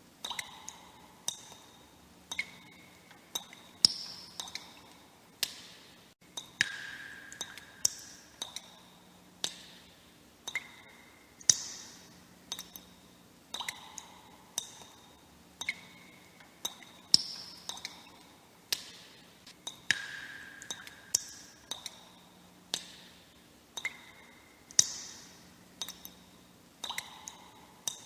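Water droplets dripping at roughly one a second, at uneven intervals. Each drop is a sharp plink with a short ringing note, and the pitch differs from drop to drop.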